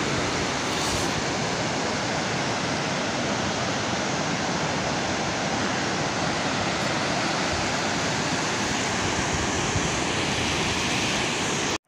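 Steady rush of fast white water in a rocky mountain river, an even hiss-like noise that breaks off suddenly just before the end.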